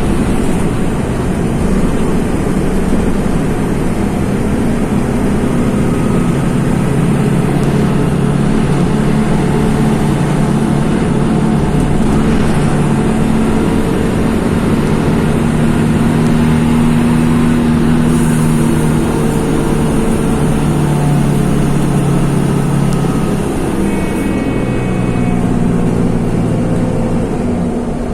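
Mercedes-Benz OF-1724 city bus's OM-926 LA six-cylinder diesel engine running on the road. Its note rises and falls several times as it pulls and changes gear.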